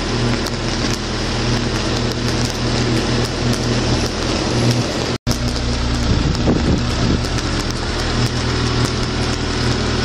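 High-voltage arc burning steadily at a power-line pole crossarm: a continuous electrical buzz with dense crackling and hiss. The sound drops out for an instant about five seconds in.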